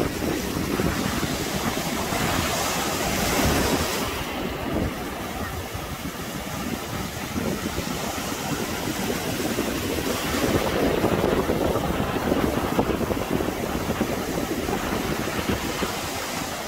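Sea surf breaking and washing in on a beach, with wind buffeting the microphone. The surf swells louder about two seconds in and again about ten seconds in.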